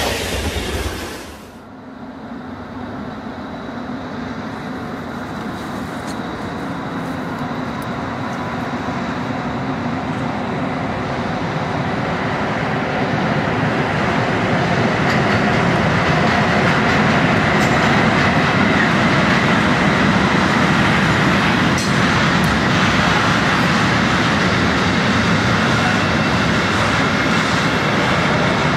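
ÖBB class 1144 electric locomotive hauling a freight train past, its rumble growing louder as it approaches, then freight wagons rolling by with a steady rattle over the rails and an occasional clank. A brief loud noise ends about a second and a half in, before the train is heard.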